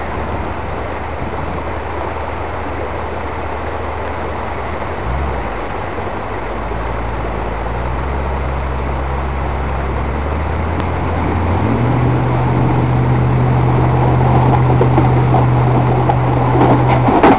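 A 4x4 engine running in a river crossing, its revs rising in steps about five, eight and twelve seconds in, then held higher and louder toward the end, over a steady rushing noise.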